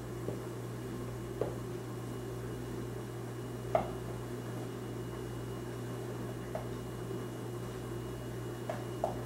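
A utensil taps lightly against the nonstick plate of an electric omelette maker as egg and chopped chard are spread in it: a handful of small clicks, the loudest a little before the middle, over a steady low hum.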